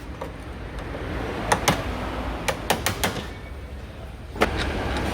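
A series of short, sharp metallic clicks and knocks from parts and tools being handled while a control arm is fitted to a BMW E39's suspension. There are two near the start of the second second, a quick cluster around the third second and one more near the end, over a low steady background rumble.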